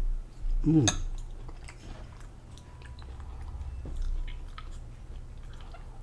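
Close-miked eating sounds: chewing with small wet mouth clicks. A brief voiced sound, a short rising and falling tone, comes just under a second in.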